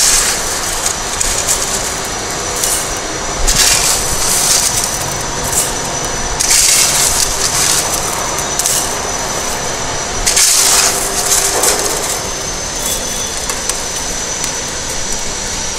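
Coarse crushed-stone aggregate, 10–12.5 mm pieces, scooped by hand from a metal pan and dropped into a cylindrical measure: the stones clatter and rattle against each other and the metal. There are three louder bursts of clatter a few seconds apart.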